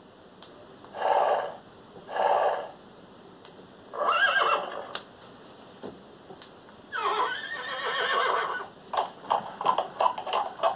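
Electronic horse sounds played by a pressed Thinkway Toys Toy Story Collection Bullseye toy: two short sounds, a whinny about four seconds in, a longer whinny about seven seconds in, then a quick run of hoof clip-clops near the end.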